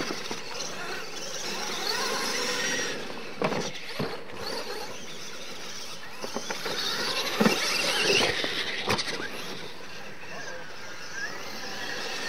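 Radio-controlled monster trucks racing on dirt: a high-pitched motor and drivetrain whine that rises and falls with the throttle, over tyres scrabbling in loose dirt. A few sharp knocks, most clearly about 3.5, 4, 7.5 and 9 seconds in, fit the trucks landing off the ramps.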